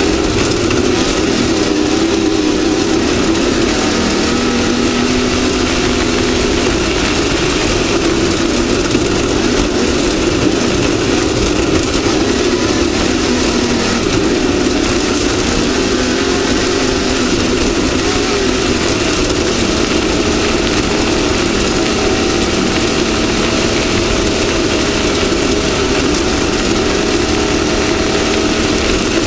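Off-road race vehicle's engine running continuously under load, its pitch shifting up and down with the throttle, over a constant loud rushing and rattling noise.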